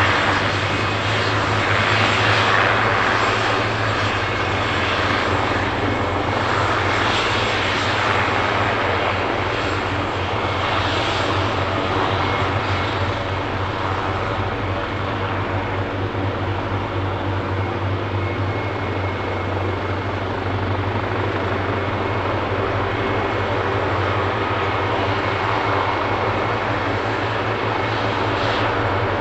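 Leonardo AW139 helicopter running, its twin turboshaft engines giving a steady high whine over a constant low rotor hum.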